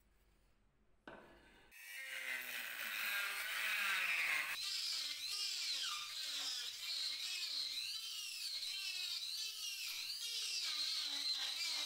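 Cordless rotary tool starting about a second in and then whining at high speed, its pitch dipping and recovering again and again as the spinning bit is pressed into the wood and grinds it out.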